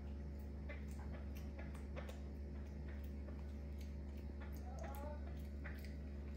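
A pet macaque picking food scraps off a tiled counter and eating them: soft, irregular small clicks and taps over a steady low hum.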